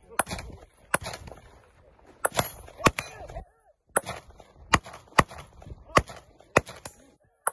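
About a dozen gunshots fired singly and in quick pairs at an uneven pace by a competitor shooting a multigun stage, with a short pause about three and a half seconds in.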